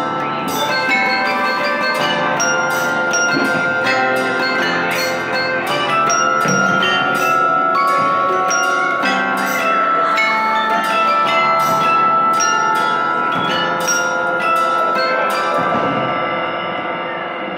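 Bell-like chime music: many struck notes ringing and overlapping in a dense wash, easing off a little near the end.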